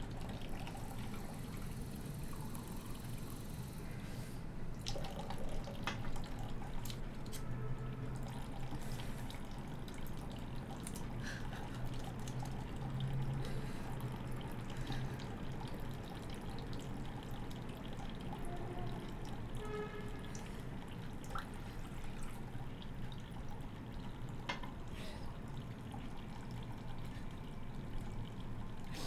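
Water from a bathroom tap running in a thin stream into the sink, with dripping and a few faint clicks.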